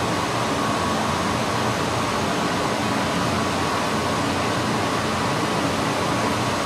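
Steady fan-like rushing noise with a faint hum, even throughout, with no hammer blows or clanks.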